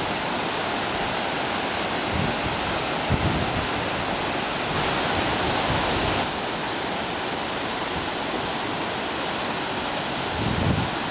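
A waterfall pouring over rock ledges: a steady, full rushing of falling water that drops a little in level about six seconds in.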